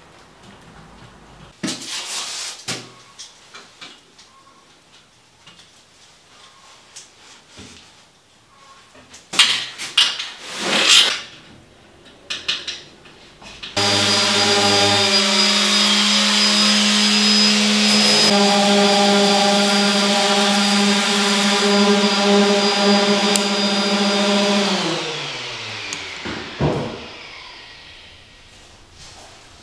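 Scattered knocks and short noisy bursts, then about halfway in an electric random orbital sander switches on and runs steadily against a plywood cabinet panel. Near the end it is switched off and winds down with a falling pitch.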